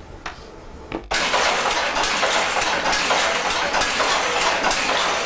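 Tweed-weaving loom running: a loud, dense, fast clatter that starts suddenly about a second in, after a few faint clicks.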